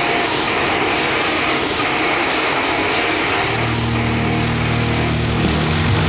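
Electric chainsaw running steadily, its heated bar and chain being lowered to cut a plastic soda bottle. A low steady hum joins about three and a half seconds in.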